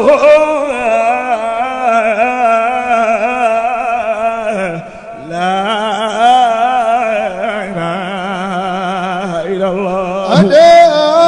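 A man's solo voice chanting a Sufi zikr into a microphone, in long, ornamented sung phrases with a short breath about five seconds in.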